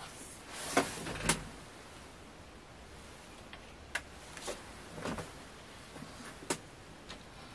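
Scattered clicks and light knocks of small objects being handled, with a short scraping rustle just under a second in and the sharpest click right after it, then a few fainter clicks.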